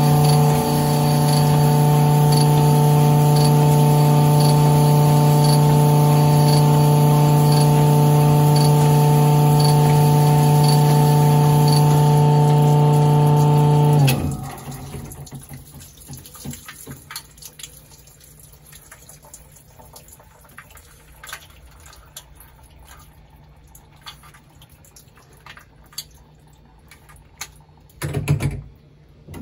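Sunnen CV616 vertical honing machine running a hone in a small-block Chevy cylinder bore: a loud steady hum with a faint tick about twice a second. About halfway through it stops abruptly as the hone is withdrawn from the bore. After that it is much quieter, with scattered light clicks and a short loud noise near the end.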